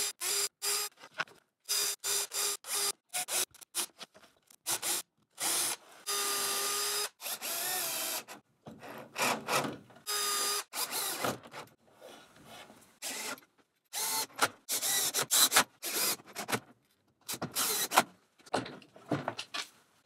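Cordless drill-driver running in repeated short bursts, drilling pilot holes and driving screws into the edges of a birch plywood drawer box. Between runs, the motor whine rises and falls, with sharp clicks from handling the wood.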